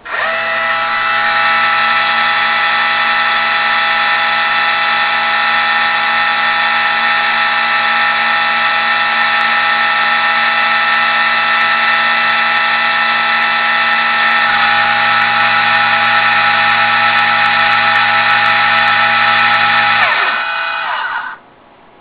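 Meade LXD-75 mount's drive motors slewing, a loud steady gear whine with several pitches at once; one tone drops out about two-thirds of the way through, and it winds down and stops near the end. The clutches are disengaged, so the motors turn without moving the mount's axes.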